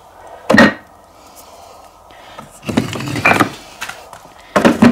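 Pieces of firewood knocking against each other as logs are picked up and moved: one sharp knock about half a second in, a short clatter of several knocks around three seconds, and another knock near the end.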